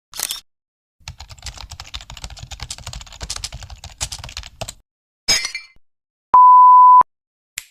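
A string of editing sound effects: rapid computer-keyboard typing for about four seconds, a brief noisy burst, then a single steady beep lasting about two-thirds of a second, the loudest sound.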